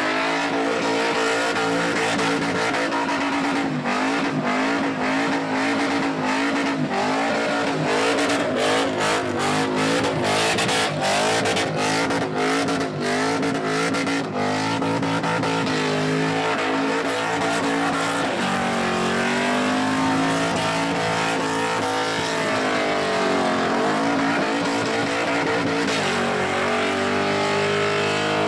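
V8 Holden Commodore doing a burnout: the engine is held at high revs while the rear tyres spin in smoke, with a rapid run of sharp cracks between about 8 and 14 seconds in. Later the revs dip and climb again a few times.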